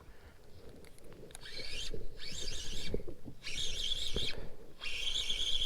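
Spinning reel being cranked during a retrieve: a high whir in four spells with short pauses between them, the last one with a steady high tone. One soft knock of handling comes about three seconds in.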